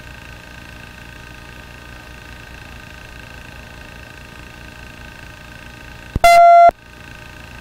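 Steady hum of a police radio and helicopter intercom feed between transmissions, with faint steady high tones. About six seconds in, a click and then a single loud electronic beep lasting about half a second.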